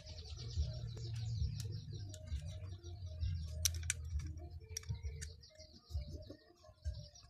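Hard plastic parts of a toy action figure clicking and rubbing as it is handled and its arms are folded: a few sharp clicks among soft handling noise, over a steady high chirping in the background.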